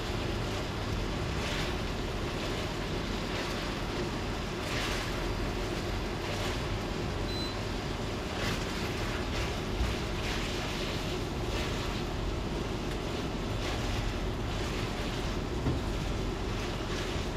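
Metal tongs tossing spaghetti and shrimp in a stainless steel skillet, soft scrapes and stirs every second or so over a steady rushing noise.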